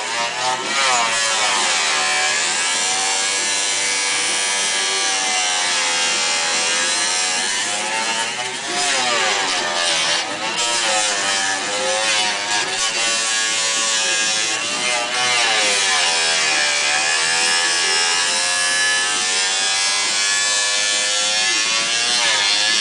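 Harbor Freight 4-inch Mighty-Mite mini table saw with its 1/8 hp motor running and the blade cutting Kydex sheet. The whine sags in pitch and recovers several times as the plastic is fed slowly through and the small motor is loaded.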